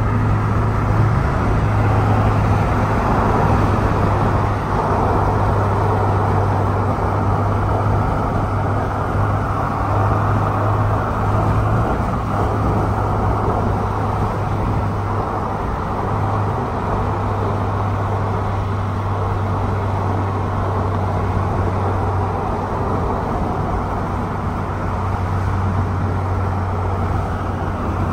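Steady in-cabin sound of a 2023 Toyota GR86 cruising at highway speed: a constant low drone from its 2.4-litre flat-four engine under an even wash of tyre and wind noise.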